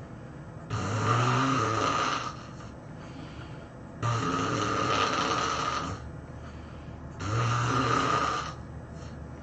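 A person snoring loudly in a steady rhythm: three drawn-out snores, each about a second and a half long and about three seconds apart, with quieter breathing between them.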